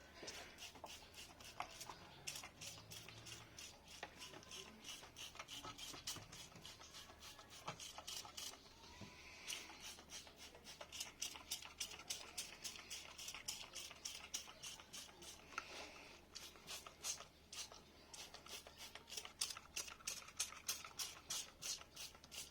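Rapid rubbing or scraping strokes by hand, about three or four a second, with a short pause a little before the middle.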